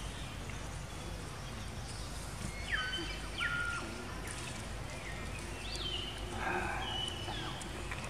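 Baby macaque screaming in distress as another monkey grabs and pins it: several short high-pitched cries, each dropping steeply in pitch and then holding a steady note, in two bouts.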